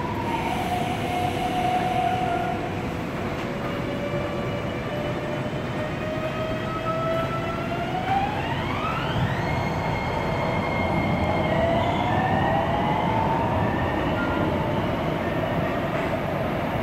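Hitachi-built Miami Metrorail train accelerating away from a station stop. Its traction-motor propulsion whines in several tones that climb steeply about eight seconds in, then shift in steps and rise again, over the steady rumble of the cars on the rails.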